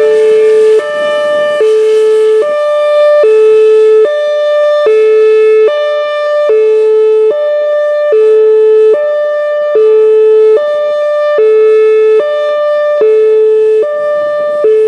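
Whelen Vortex R4 electronic outdoor warning siren sounding its Hi-Lo tone: two steady pitches alternating, each held for a little under a second.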